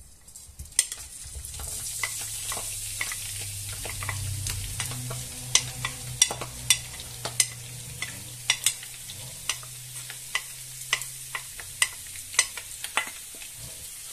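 Sausage pieces, chopped onion and garlic dropping into hot olive oil in a frying pan and sizzling, with repeated sharp taps of a wooden spatula scraping them off a plate and against the pan.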